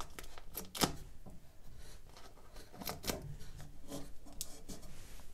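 Masking tape being pressed and smoothed along the wooden inside of a pine chest of drawers: light rubbing and scattered small taps of hands on the wood, the sharpest about a second in.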